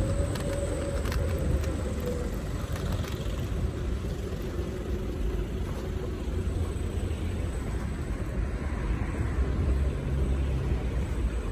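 Xiaomi Mi 1S electric scooter riding slowly over paving stones: a steady low rumble of tyres and wind on the microphone. There is a faint whine that rises a little and then fades over the first couple of seconds, and a few rattling clicks near the start.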